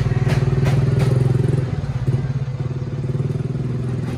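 A motorcycle engine idling steadily, its pitch dipping slightly about halfway through and then recovering. A couple of light clicks come in the first second.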